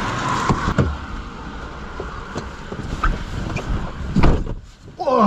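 Tyres hissing on a wet road as a car passes in heavy rain, fading away, with a few knocks and a heavier thump about four seconds in.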